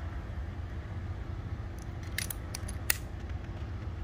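Light metallic clicks from a .22 Brocock PCP air rifle being handled and readied, a quick cluster of them followed by one sharper click near three seconds in, over a steady low rumble.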